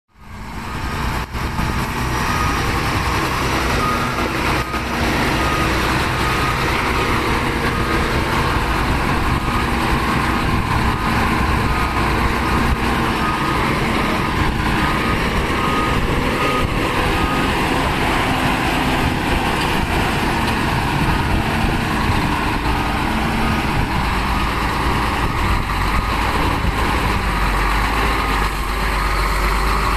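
Heavy dump truck's diesel engine running steadily, with a reversing beeper sounding at an even pace from about two seconds in to about nine seconds in. The low engine rumble grows stronger near the end.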